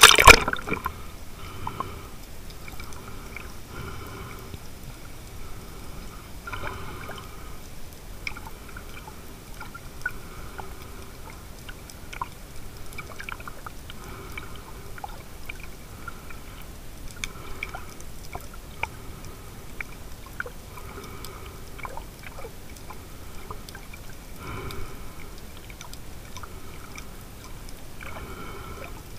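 A camera plunging under the water with a splash, then muffled underwater sound: gurgling with scattered small clicks and a swishing that comes back every three to four seconds.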